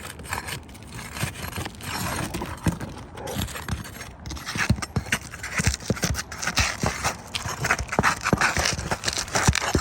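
Irregular scraping with many dull thumps, growing busier and louder about halfway through.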